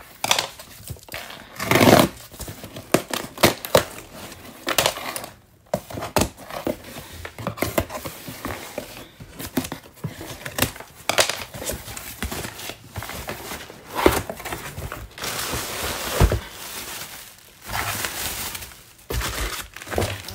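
Scissors cutting packing tape on a cardboard shipping box, with tape tearing and cardboard rustling, scraping and knocking as the flaps are pulled open. Near the end, a plastic bubble-padded mailer crinkles as it is lifted out.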